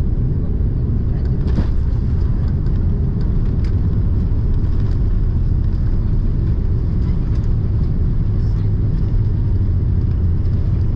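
Steady low rumble inside the cabin of an Airbus A330 rolling down the runway on landing, with the engines and airflow heard through the fuselage.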